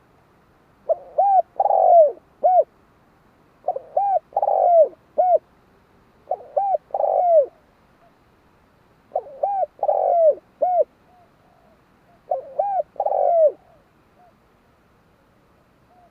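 Spotted dove cooing: five phrases of its low, hooting song, each of about four notes, repeating about every three seconds.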